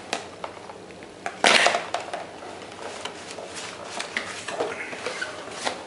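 Phone box and packaging being handled and opened, with light clicks and taps and one louder scrape or rustle about a second and a half in.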